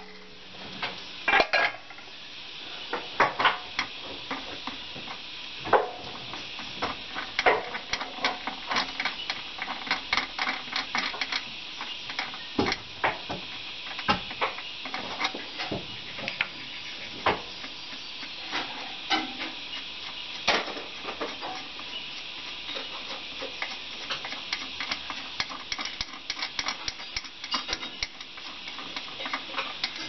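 Irregular clicks and light metallic clinks of hands handling the air-cleaner canister and its end cap on a JCB backhoe's engine, over a steady high hiss.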